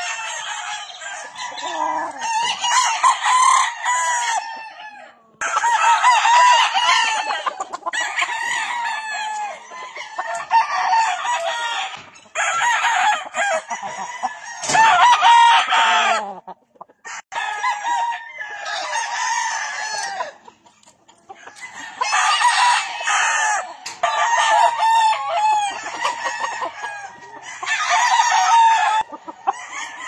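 Gamefowl roosters crowing, one crow after another with short breaks, several birds overlapping at times.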